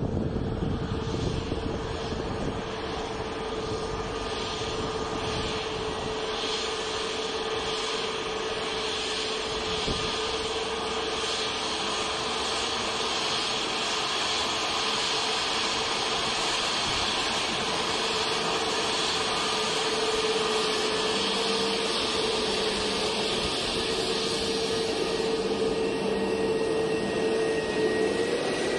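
Jet airliner's twin turbofan engines at taxi idle: a steady whine on one pitch over an even hiss, the whine bending slightly upward near the end.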